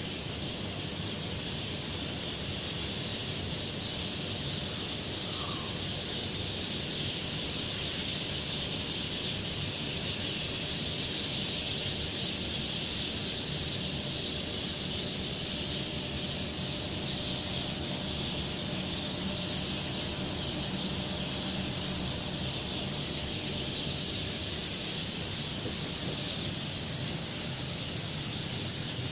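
Steady outdoor ambience at dawn: an even, high-pitched hiss that does not change, over a low rumble.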